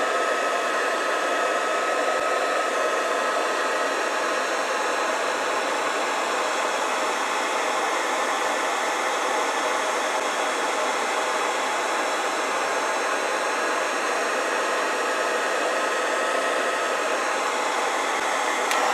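Heat gun blowing steadily, a rush of hot air with a steady whine over it, shrinking 3/16-inch heat-shrink tubing over a sewing machine motor's lead wires.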